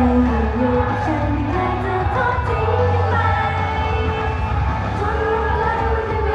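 Idol-group pop song on a stage sound system: female singing with microphones over a backing track with a heavy, steady bass.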